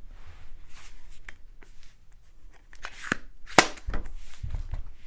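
Handling noise from a JR carbine being picked up off a cloth-covered table: faint rustling and several clicks and knocks, with a sharp click about three and a half seconds in followed by a few low thumps.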